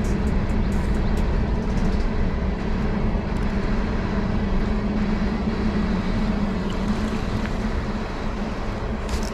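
Swollen creek water rushing steadily, an even wash of noise with a low steady hum beneath it.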